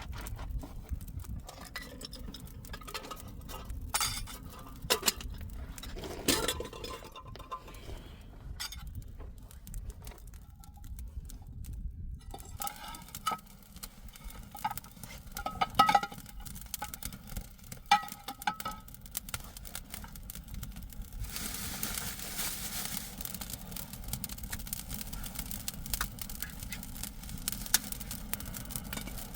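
Scattered knocks and clinks of utensils or cookware, with a few short ringing clinks partway through; a steady hiss comes in about two-thirds of the way in.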